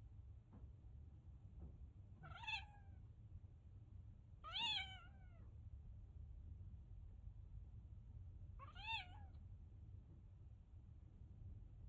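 Minuet kitten meowing three times: short high-pitched meows that rise and fall in pitch, the second one longer and louder than the others.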